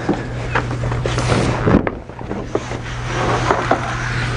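A large sheet of poster paper rustling and crackling as it is lifted and laid flat onto foam board, with a louder swish of paper between one and two seconds in.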